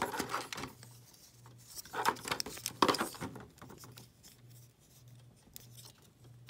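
Hard plastic parts of a Transformers Studio Series Shatter action figure being handled and moved between the fingers: short scraping, clicking rustles near the start and again about two and three seconds in, over a faint low hum.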